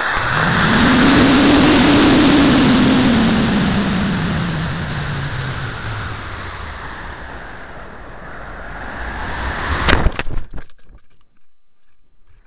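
A LOC Aura model rocket on an Aerotech E15-4 motor in powered climb and coast, heard from on board: a loud rushing roar of thrust and air past the airframe, with a hum that rises in pitch, then slowly falls as the noise fades. About ten seconds in comes a sharp crack, the ejection charge firing, followed by faint irregular fluttering.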